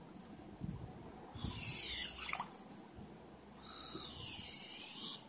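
Homemade drinking-straw whistle, a cut and bent straw blown with its lower end dipped in water: two high whistling notes that slide in pitch as the straw is moved up and down in the water. The first glides downward and the second, longer one dips and rises again.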